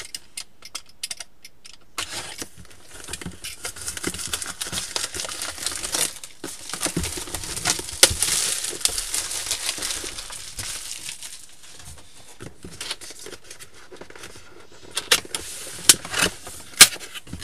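Plastic shrink-wrap film being cut and peeled off a cardboard power-supply box, crinkling and crackling, with a few sharp snaps near the end.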